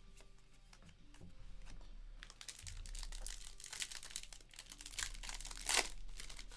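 Foil wrapper of a Bowman Draft baseball card pack crinkling as it is torn open, starting about two seconds in, with a louder tearing rip near the end.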